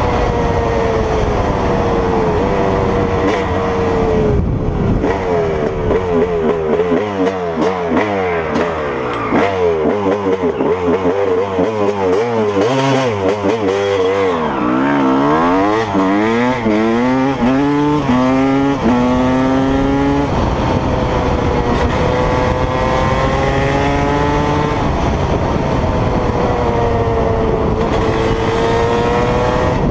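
Dirt bike engine heard from the rider's seat, revving up and down as the rider shifts gears at speed. Around the middle the pitch falls as the bike slows, then climbs again as it accelerates away.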